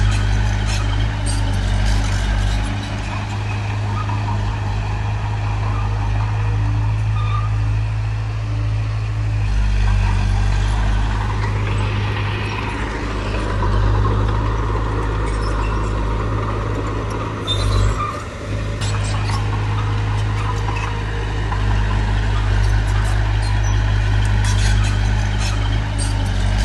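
Heavy diesel engine of a working bulldozer running steadily under load, with scattered metallic clanks and a brief drop in level about three-quarters of the way through.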